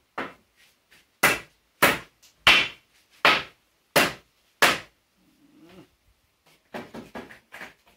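Hammer driving nails into a wooden crosspiece: six sharp strikes about two-thirds of a second apart, followed near the end by a few lighter knocks.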